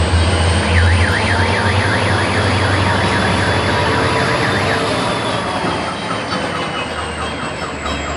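Car alarm sounding a fast warble, about four swings a second, for around four seconds, then changing to slower repeated sweeps near the end. Under it runs the steady low rumble of the passing freight train's diesel locomotives and cars.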